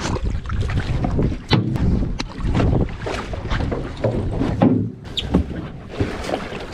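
Handling noise on a fishing boat's deck: a run of irregular knocks and thuds over a steady low rumble of wind and water.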